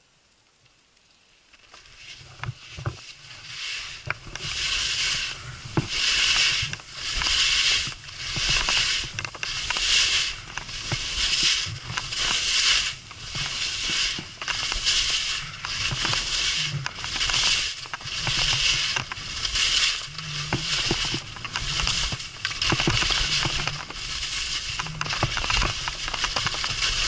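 Skis hissing and scraping across snow in a rhythm of linked turns, each swelling and fading about once a second, starting after a moment of near quiet. A low rumble of wind on the microphone runs underneath.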